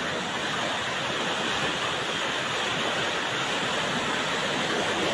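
Floodwater rushing, a steady, dense noise with no breaks.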